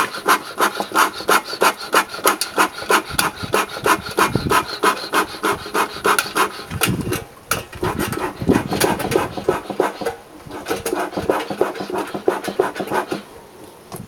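Beekeeper's bellows smoker pumped fast with its nozzle in a burning stump hollow: a steady run of short air puffs, about three a second, fanning the coals hotter. The pumping stops about a second before the end.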